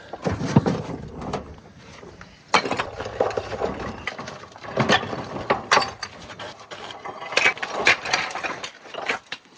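Irregular mechanical clattering and clicking, with sharp knocks every second or two.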